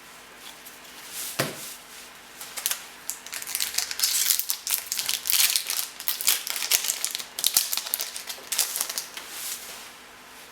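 Foil trading-card pack being torn open and crinkled, a dense run of sharp crackling rustles, with one knock about a second and a half in.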